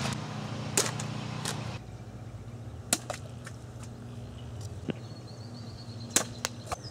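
Several scattered sharp clicks and knocks, spread unevenly across a few seconds, over a faint steady low hum.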